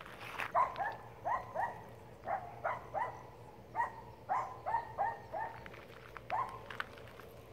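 Poodle barking repeatedly at a bull elk: short, high-pitched barks, mostly in quick pairs and threes, with brief pauses between the volleys.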